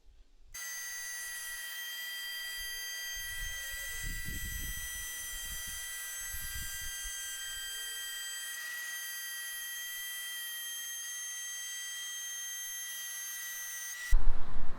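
Electric router with a half-inch pattern bit running at full speed, a steady high-pitched whine, with some low rumbling a few seconds in as it cuts a groove in wood. It starts abruptly and cuts off suddenly near the end.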